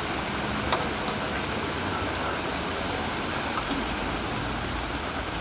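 Breaded chicken pieces deep-frying in a large fryer of hot oil: a steady sizzle, with one light click from a utensil under a second in.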